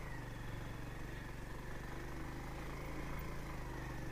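Motorcycle engine running steadily at low speed, heard from the rider's seat, with an even, low note that barely changes.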